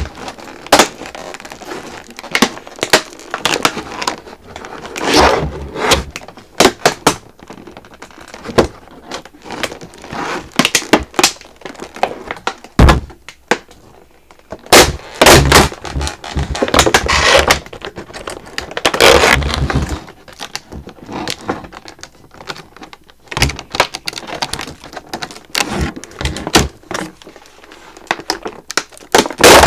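Plastic toy packaging being pulled open by hand on a doll box: irregular sharp clicks and cracks, with a few longer rustling stretches.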